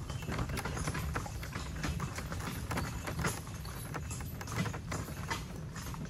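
Horse's hooves clip-clopping steadily on a wet gravel road, several strikes a second, over the continuous low rumble and rattle of the horse-drawn cart rolling along.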